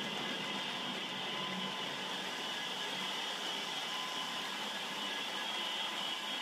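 Model HST train running on a model railway layout: a steady whir with faint high whine.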